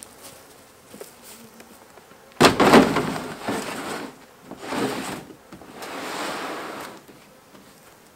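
A heavy plastic storage tub being slid across a ute's steel tailgate and into the tray. There is a sudden loud scrape about two and a half seconds in, then several shorter scraping pushes, with bees buzzing faintly.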